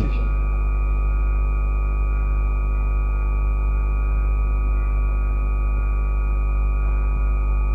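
Steady electrical hum, with a thin high whine above it. The buzz is picked up on the sound system or recording line, and it holds unchanged in level and pitch.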